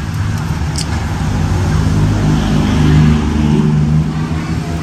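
A road vehicle's engine passing close by, growing louder to a peak about three seconds in and then fading.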